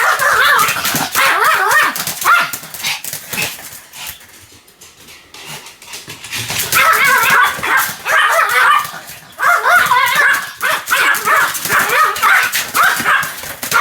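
Pomeranian barking rapidly and repeatedly, with high yappy barks; the barking drops away for a couple of seconds near the middle, then starts up again.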